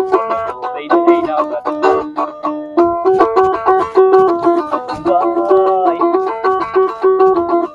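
Krar (East African plucked lyre) playing a fast melody of short, quickly repeated plucked notes.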